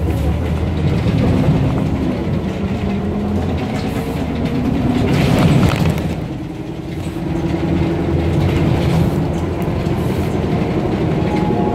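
Interior noise of a city bus under way: a steady engine drone whose pitch shifts as the bus speeds up and slows, mixed with road and cabin rumble. A louder rush of noise comes about five to six seconds in.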